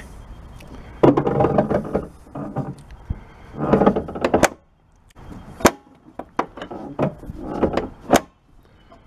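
Car hood latch mechanism being worked and the hood brought down onto the latch's first catch: two spells of metal scraping and clunking, then several sharp clicks.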